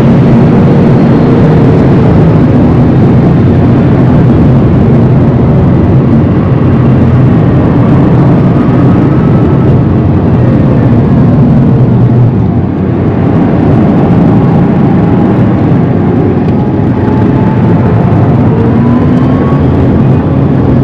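Rimac Nevera electric hypercar driven hard, heard from inside the car: loud, steady road, tyre and wind noise with a faint electric-motor whine that rises and falls with speed. It drops off briefly about twelve seconds in, then the whine climbs again.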